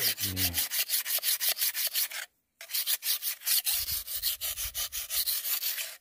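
Sickle blade being sharpened on a wet whetstone: quick back-and-forth scraping strokes, several a second, with a short break a little over two seconds in.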